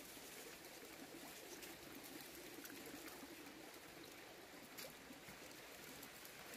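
Faint trickling of a shallow rocky stream, with a few soft clicks as hands work among the stones in the water.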